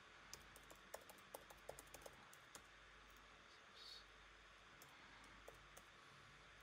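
Faint keystrokes on a computer keyboard over quiet room tone: a quick run of clicks in the first couple of seconds, then a few scattered ones.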